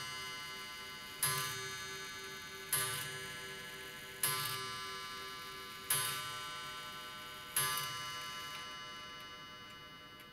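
Mauthe 'Adler Gong' clock chime striking: its long gong spring, which carries a heavy cast-iron block, is hit five times about a second and a half apart. Each strike rings on in a rich tone that fades slowly and overlaps the next, and the last one dies away near the end.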